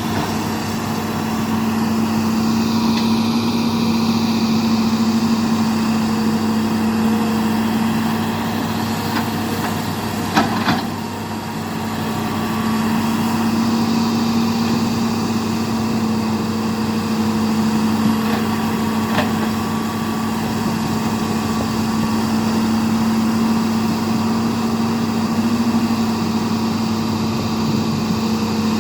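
Hitachi excavator's diesel engine running steadily at an even pitch. Two sharp knocks come close together about ten seconds in, and a lighter one just before twenty seconds.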